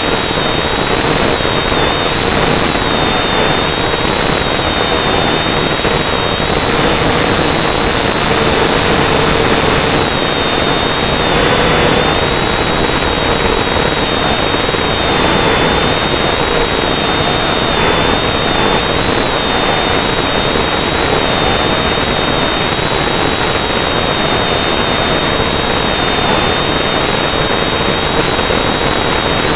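A quadcopter's electric motors and propellers whirring steadily, heard close up from the drone itself. There is a high whine that wavers slightly in pitch.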